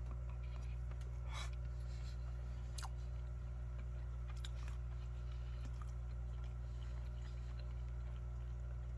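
A person chewing a bite of processed chicken patty: faint mouth and chewing noises with a few soft clicks, over a steady low hum.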